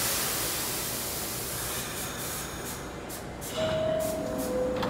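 R68 subway car letting out a sudden burst of compressed-air hiss that fades over a couple of seconds. About three and a half seconds in, a two-tone descending door chime sounds, a higher tone then a lower one.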